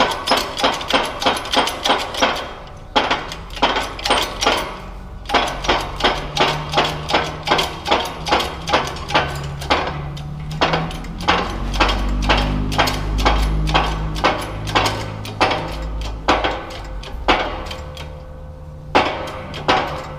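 Rapid, repeated hammer blows, about three to four a second, with short pauses near three and five seconds in.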